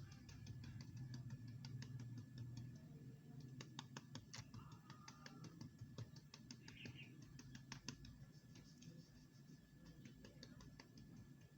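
Gentle patting on a baby's back to bring up a burp: faint, quick, irregular taps, several a second, over a low steady hum.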